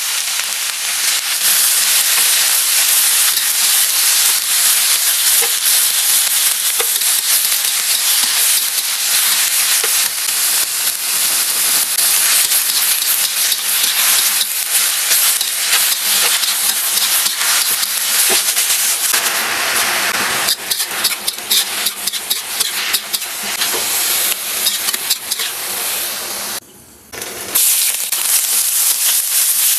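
Food frying in a hot pan, a steady dense sizzle and crackle, as in vegetables being stir-fried. The sound drops out briefly near the end, then the sizzle resumes.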